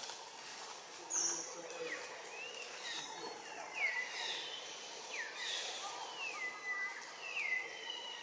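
Forest ambience with a series of short, high whistled calls, each falling in pitch, about one a second, and a high steady buzz in the middle.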